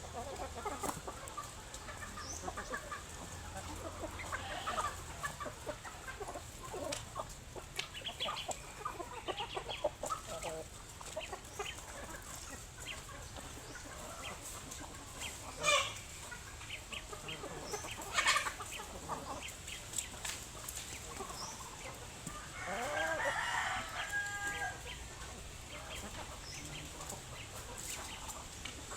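A flock of chickens clucking, with many short calls scattered throughout and a rooster crowing once about three-quarters of the way through. Two sharp knocks stand out as the loudest sounds, a little past halfway.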